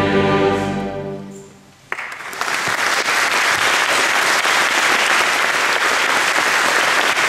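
Choir and orchestra's final held chord dying away over the first second and a half, then the audience starts applauding about two seconds in and keeps clapping steadily.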